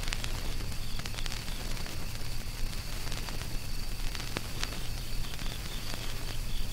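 Ambient noise soundscape from a Raspberry Pi noise generator: a steady crackling hiss with scattered sharp clicks over a low steady hum.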